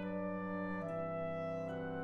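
Instrumental music of slow held chords that change roughly once a second.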